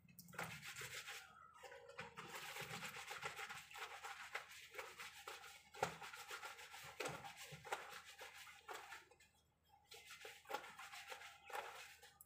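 A wet blanket being worked by hand in a plastic drum, swishing, rubbing and squelching with many small splashes and knocks, pausing briefly about nine seconds in.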